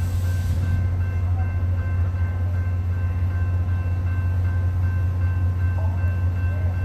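Diesel train idling out of sight: a steady low engine drone with a few faint, steady whining tones above it.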